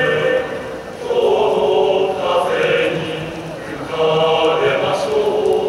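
Large male-voice glee club singing in full chorus, holding chords in long phrases with brief breaks for breath about a second in and again past the middle.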